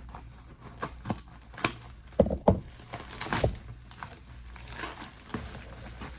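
Packaging being torn open and crinkled by hand: irregular rustling and crackling with a few sharper rips, the loudest a little over two seconds in and around three and a half seconds.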